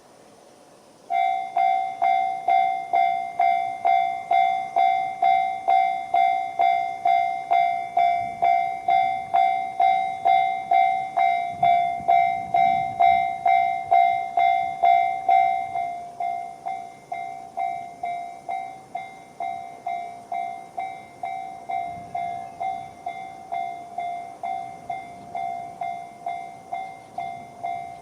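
Japanese railway level-crossing alarm with the JR standard electronic bell tone, starting about a second in and ringing a steady ding-ding at roughly one and a half strikes a second. About halfway through it drops to a noticeably lower volume, as JR crossing alarms do once the barrier arms are down.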